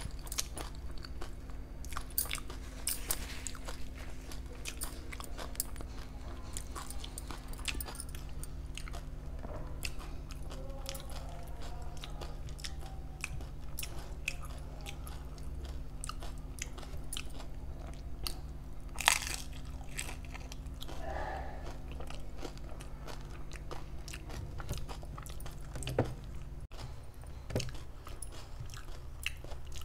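Close eating sounds of dahi puri: crisp puri shells crunching as they are bitten, and chewing, with one sharper crunch about two-thirds of the way through.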